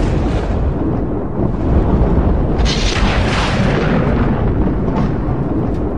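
Loud, continuous deep rumbling like an explosion or eruption, with a hissing surge about two and a half seconds in: a sound effect for a magic gate opening.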